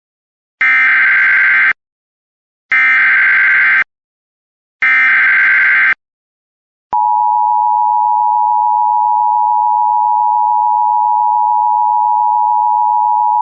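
Emergency Alert System tones announcing a flash flood warning: three loud SAME header data bursts, each about a second long with a short gap between them, then about seven seconds in the steady two-tone EAS attention signal begins.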